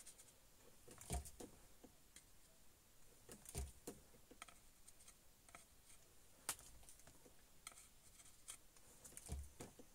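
Near silence broken by a few faint, scattered clicks and light taps from small hand tools being handled at a circuit board.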